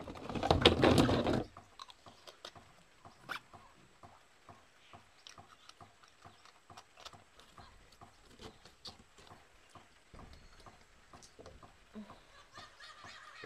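Plastic bottles clattering together in a plastic basin as they are handled, loud for about the first second and a half, then scattered light knocks and taps of bottles and caps.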